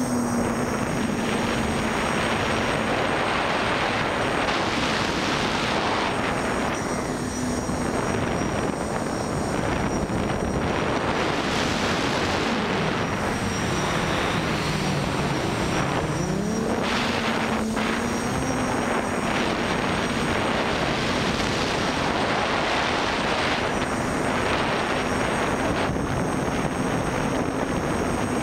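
Armattan Rev2 Tilt quadcopter's Tiger MT2216 motors and 9x5 propellers heard through the onboard camera: a steady motor hum under heavy wind noise. About halfway through, the motor pitch dips low and then climbs back up as the throttle eases and returns.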